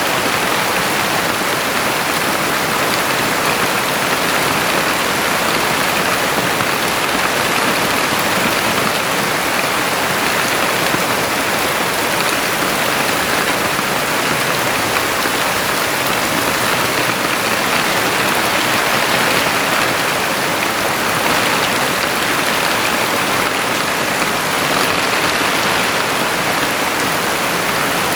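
Heavy rain falling steadily, a dense, even hiss of drops on the ground and surfaces.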